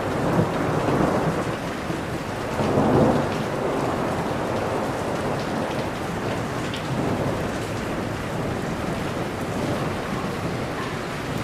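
Thunderstorm: steady heavy rain falling on a surface, with rolling thunder swelling up about three seconds in and again more softly near the middle.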